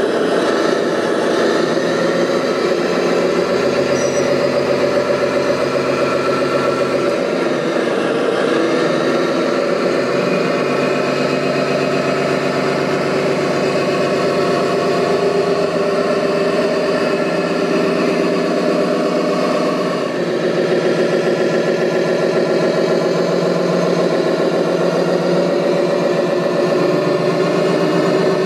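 Engine sound of an RC construction machine running steadily at idle, with a short dip about twenty seconds in.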